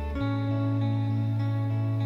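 Background music led by a plucked guitar, with a sustained bass note that changes about a quarter second in.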